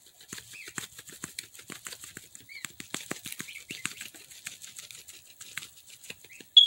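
Lemon pepper shaken from a shaker bottle onto a plate: a quick, irregular patter of small clicks and rattles. One louder sharp high tick comes near the end.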